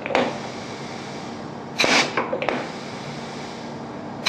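Pneumatic solenoid valve cycling an air cylinder: three short sharp bursts of exhaust air, about two seconds apart, as the valve shifts and the cylinder strokes, over a steady hiss. The exhaust vents through stainless steel silencer regulators that throttle it to control the cylinder's speed.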